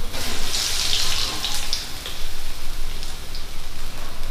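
Urad dal vadas deep-frying in hot oil in a metal kadai: the oil hisses and crackles, swelling as the dough goes in.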